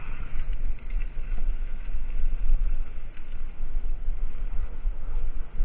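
Wind buffeting the microphone while cycling along a rough concrete lane, a loud, uneven low rumble with road noise underneath.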